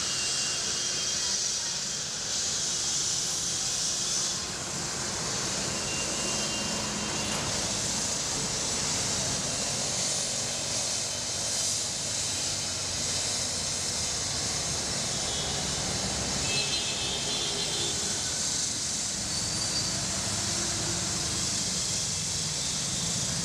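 Steady road traffic noise of a busy city street: a constant hiss of passing vehicles over a low engine hum.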